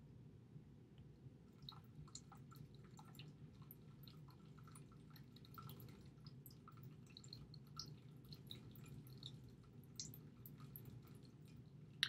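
Near silence: faint, irregular ticks and scratches of a stylus writing on a tablet, over a low steady hum.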